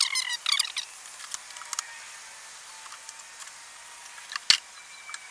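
Packaging crinkling and rustling as a bike's handlebars are unwrapped, with scattered clicks and one sharp snap about four and a half seconds in.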